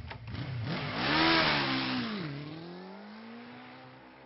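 Motorbike engine revving, its pitch swooping up and down and loudest about a second in, then settling into a steady drone that slowly fades as it rides away.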